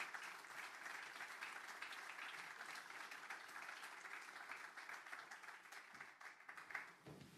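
Audience applause, fairly faint and thinning out, dying away about seven seconds in.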